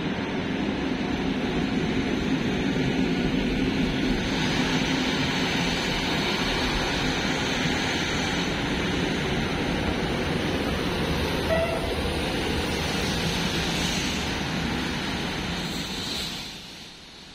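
Electric multiple-unit commuter trains running along the platform track: a steady rumble of wheels on rail that falls away about a second before the end.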